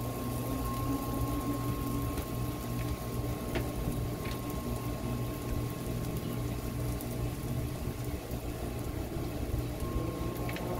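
Bacon fat sizzling and bubbling in the hot centre of a discada (plow-disk wok) over a charcoal fire: a steady sizzle, with a low steady hum underneath and a few faint clicks.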